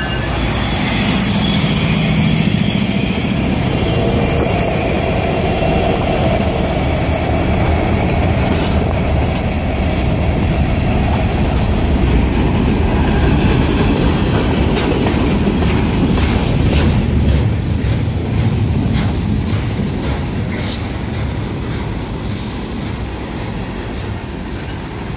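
Diesel-hauled freight train passing close by: a locomotive's diesel engine goes by in the first few seconds, then a long string of hopper and tank cars rolls past with a steady rumble of steel wheels and clicking over the rail joints.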